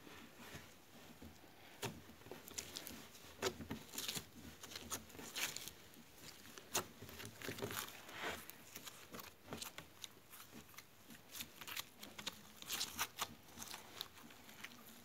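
Slime being kneaded and squeezed by hand, giving irregular small clicks and crackles as air pockets in it pop.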